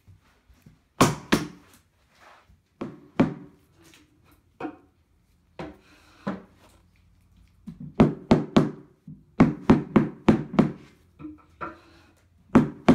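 Repeated knocking on the panels of an IKEA Kallax shelf, driving a panel down onto its wooden dowels to join it. Single knocks at first, then quick runs of several knocks a second in the second half.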